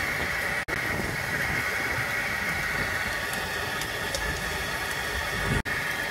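Fishing boat's engine running steadily, a constant drone with a whine near the top. The sound cuts out briefly twice.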